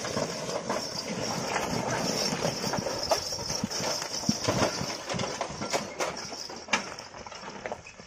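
Stone-laden bullock cart passing on a gravel track: the bullocks' hooves clopping and the cart clattering and crunching over the stones in irregular knocks, over a steady high-pitched hiss.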